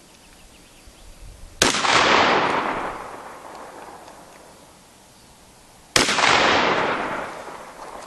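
Two shotgun shots from an old 12-bore side-by-side, about four seconds apart. Each sharp report is followed by a long echo that fades over about two seconds.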